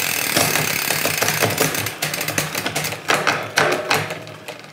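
Bicycle chain running over the cassette and through a freshly fitted 12-speed Shimano Deore XT rear derailleur as the drivetrain is turned and shifted through the gears, with a dense run of clicks. It fades near the end.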